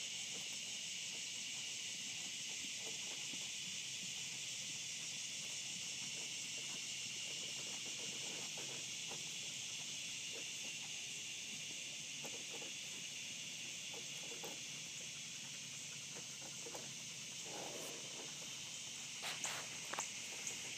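Steady, high-pitched chirring of insects, with faint soft thuds now and then and a few sharper knocks near the end.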